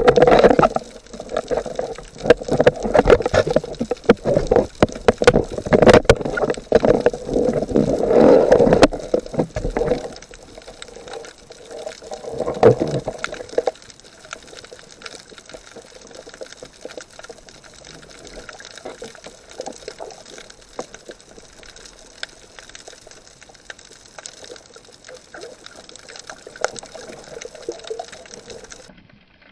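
Water splashing and gurgling around a snorkeller, loud and churning with sharp clicks for about the first ten seconds, then settling to a much quieter watery hiss with faint scattered clicks.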